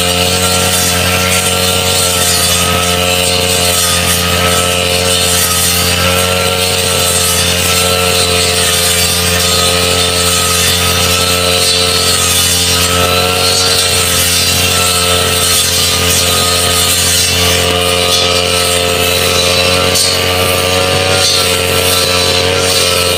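Backpack brush cutter running steadily, with only slight wavers in pitch, as its cutting head swings through tall grass.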